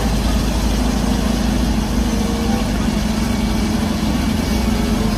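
Large Caterpillar crawler bulldozer's diesel engine running steadily, a deep drone, as the dozer pushes earth and rubble with its blade.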